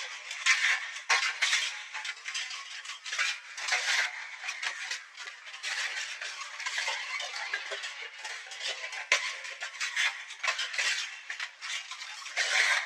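Dense, continuous clattering and scraping of small hard objects, a rapid jumble of clicks and rattles with no low rumble.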